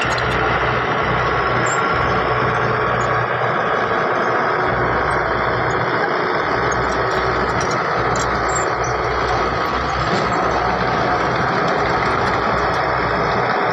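Heavy diesel construction machinery running steadily under load.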